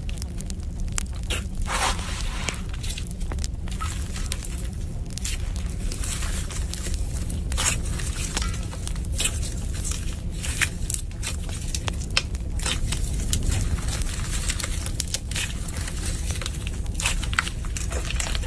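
Clear red slime mixed with white foam beads being squeezed and pressed by hand, giving many small irregular crackles and pops over a steady low hum.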